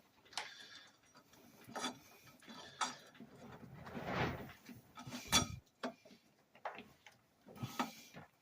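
Sharp metallic clicks and knocks, roughly one a second, with a longer rasping scrape about four seconds in, from hand tools turning over a bare Chrysler 5.9 LA V8 to bring a piston down to the bottom of its bore.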